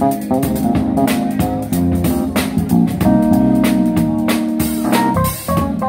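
A live trio of Korg Grandstage stage piano, electric bass guitar and drum kit playing an instrumental passage, the bass line prominent beneath keyboard notes and cymbal strokes.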